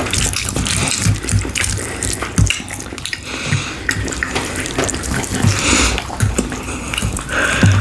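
Close-miked eating sounds: wet chewing and lip-smacking of saucy food, in irregular patches with many short clicks and soft low thumps.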